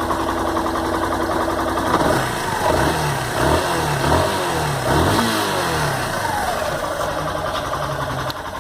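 Yamaha Fazer 150's single-cylinder engine idling, then revved in several quick blips from about two seconds in before settling back to idle. It carries a mechanical engine noise that the owner finds too loud; it has not changed after a valve adjustment, and others call it normal.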